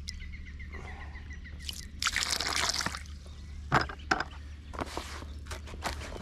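Water poured and trickling into a bucket of feeder groundbait to moisten the mix, in a spell of about a second, followed by a couple of sharp knocks.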